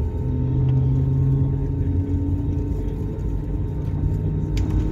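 Jet engines of an Airbus A320-family airliner running at taxi power, heard inside the cabin as a steady hum over a low rumble. A short click sounds near the end.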